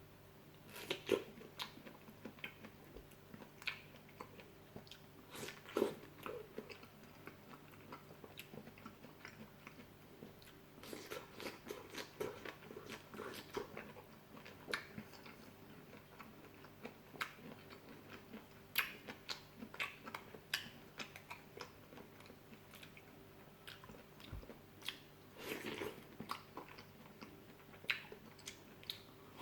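Close-up biting and wet chewing of fresh fruit, with irregular crunches and mouth smacks; a few louder bites stand out, about a second in, around six seconds, and again later on.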